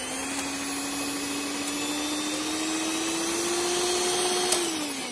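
Miyako hand mixer's electric motor running with the beaters spinning freely: a steady whine that creeps slightly higher in pitch, then is switched off near the end and winds down. It is a test run after the stripped drive gear has been replaced.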